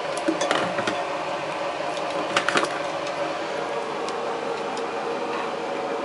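Handheld Helix hair dryer running with a steady whoosh and a low hum, with a few sharp clicks and taps about half a second in and again about two and a half seconds in.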